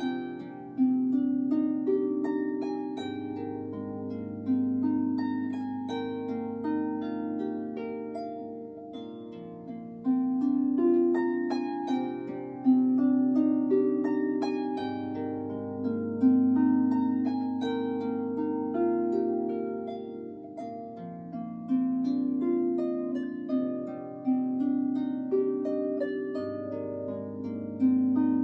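Solo Salvi Titan harp with 38 silkgut strings, played by hand: plucked notes ringing on and overlapping in flowing broken chords over a melody, with deep bass notes entering a few seconds in, around halfway and near the end.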